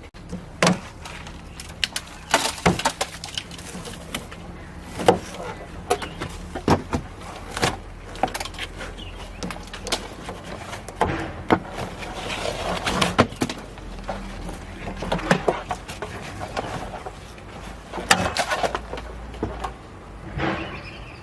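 Irregular knocks and clatter, a few sharp hits every second or two, over a low steady hum.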